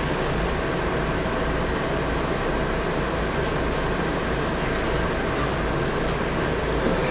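Volvo B10M bus's six-cylinder diesel engine running steadily, heard from inside the cabin, with a steady turbocharger whistle over the low drone.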